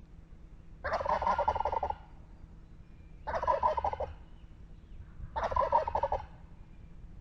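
Turkey gobbling three times, each gobble a rapid rattling call about a second long.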